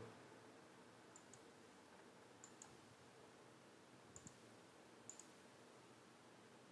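Near silence with a few faint computer mouse clicks, mostly in quick pairs of button press and release, as the slideshow is clicked through and closed.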